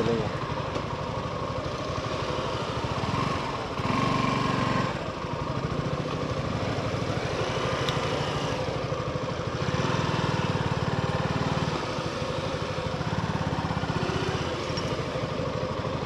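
Heavy motorcycle engine running at low speed, its note rising briefly about four seconds in and again around ten and thirteen seconds as the throttle is opened.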